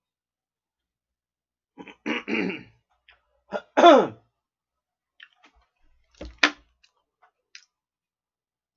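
A man clearing his throat and coughing: a couple of harsh bursts about two seconds in, then a louder one that falls in pitch around four seconds. About six and a half seconds in comes a short sharp sound with a low thud.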